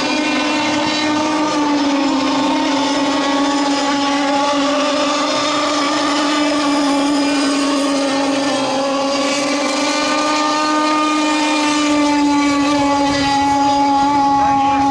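Radio-controlled model racing boats running flat out, their motors making a continuous high buzzing whine. The pitch drifts a little up and down, and more than one motor can be heard at once at slightly different pitches.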